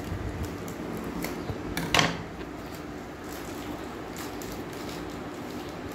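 A small cardboard box being cut open with scissors and handled, with faint clicks and rustles and one loud crackle about two seconds in, over a steady low hum.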